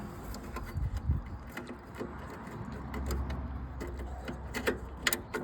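Light clicks and knocks of small metal parts being handled as a starter solenoid is worked into place on a ride-on mower, over a low rumble, with a few sharper clicks near the end.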